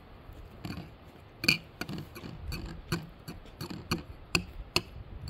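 Light, irregular plastic clicks and knocks from a small child's hands working at the top of a plastic water cooler, the sharpest about a second and a half in.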